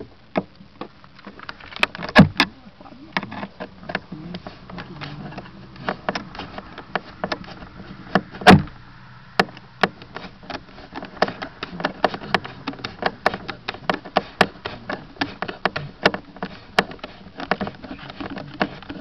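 Irregular knocks and clicks of handling close to the microphone, with two loud knocks about two seconds and eight and a half seconds in.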